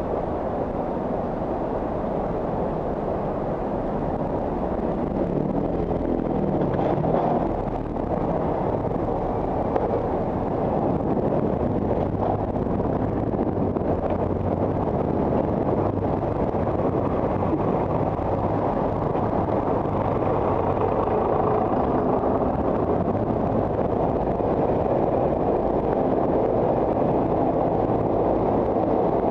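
Engines and road noise of slow, dense car traffic close around a moving bicycle, a steady rumble that grows a little louder in the second half.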